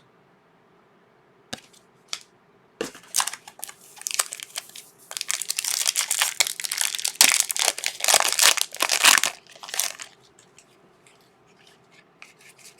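Foil trading-card pack wrapper being handled and crumpled, a few light clicks and then a long run of dense crinkling that is loudest in the middle and dies away near the end.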